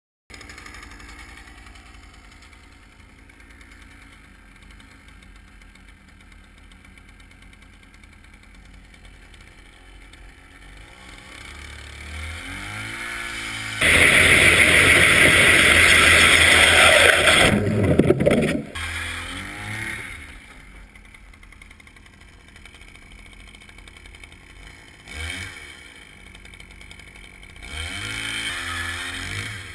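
Gas-powered ice auger engine running and revving up and down as it drills through the ice, with a loud rushing noise for about four seconds midway.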